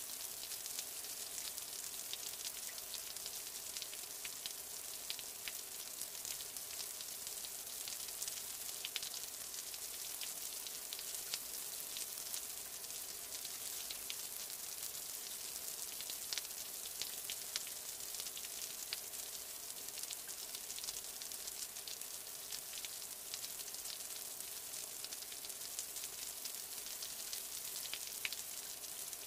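Steady rain: an even, high-pitched hiss of many fine drops, with sharper single drop ticks scattered throughout.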